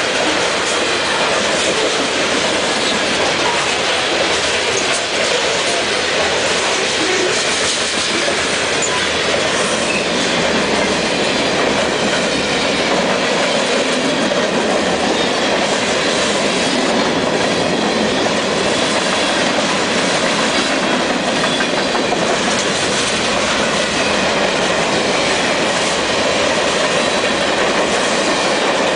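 Long freight train's cars (covered hoppers, centerbeam flatcars, boxcars) rolling past at close range: steady, loud wheel-on-rail noise.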